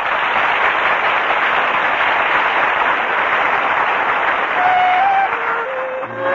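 Studio audience applauding after the song. Orchestra music comes in under the applause near the end.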